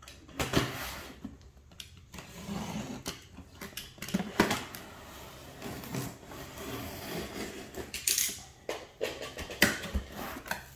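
Hands opening and handling a cardboard box: irregular cardboard rustling and scraping with scattered sharp knocks and taps.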